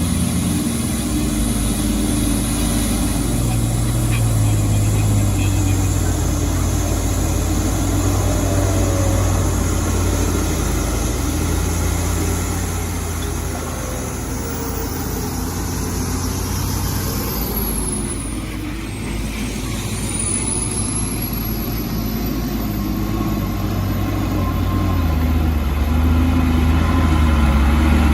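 Heavy diesel engine running steadily under load, its note shifting slightly and growing louder near the end.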